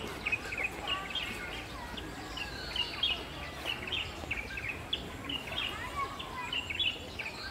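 Many small birds chirping and twittering together, a dense chorus of short calls, with people's voices murmuring faintly behind.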